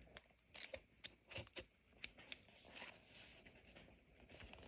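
Faint handling of sticky tape: a few small, scattered clicks and rustles, mostly in the first half.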